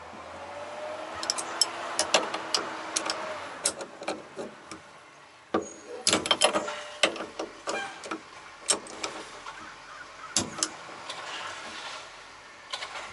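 Irregular metal clicks and clinks of a wrench turning the top nut on a coilover's threaded shock shaft while a second tool holds the shaft. A tighter cluster of clicks comes about six seconds in.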